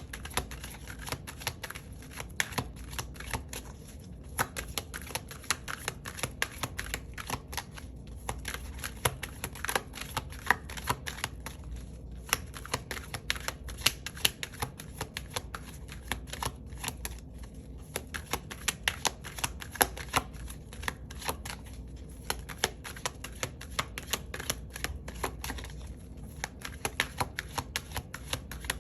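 A deck of tarot cards being shuffled by hand: a continuous run of rapid, irregular card clicks and flicks.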